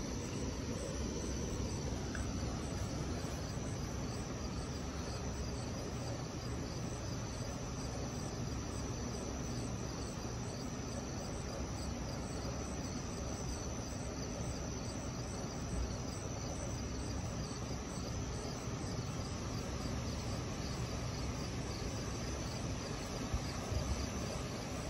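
Night insects chirping in a steady high chorus, over an even low background noise.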